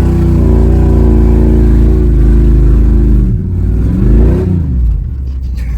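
1994 GMC 1500's 350 (5.7 L) V8 revving hard through an open exhaust cutout, held at high revs for about three seconds. It then drops off, blips up and down once more about four seconds in, and falls back to lower revs near the end.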